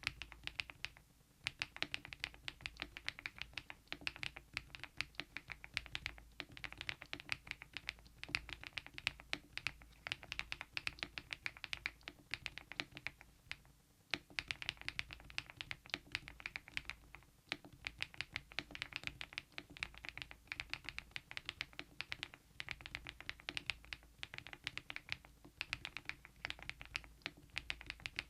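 Fast typing on a mechanical keyboard fitted with KeyTok Godzilla smile-profile keycaps: a dense run of keystrokes, with short pauses about a second in and about fourteen seconds in.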